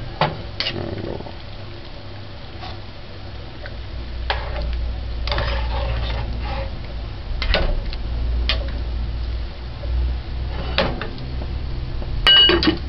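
A metal spoon stirring stew in a metal pot, with scattered clinks against the pot. Near the end the metal lid is set back on the pot with a ringing clank.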